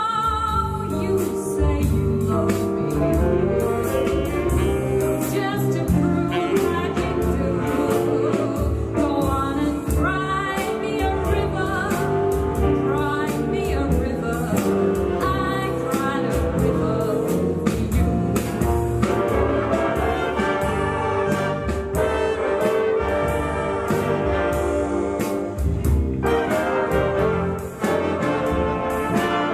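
Live big band playing a jazz number, with the saxophone and trumpet section and a rhythm section.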